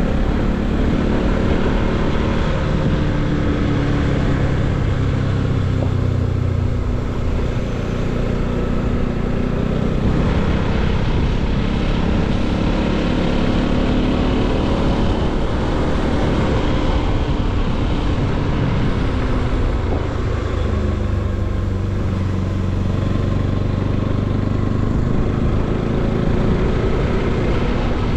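Bajaj Pulsar NS200's single-cylinder engine running while the motorcycle is ridden, its note shifting up and down over a steady rush of noise.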